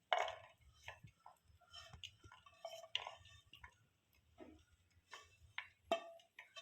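Spoon or spatula scraping and tapping against a pan and plate as cooked beef samosa filling is transferred: faint, irregular clicks and scrapes, with a louder knock at the start and another near the end.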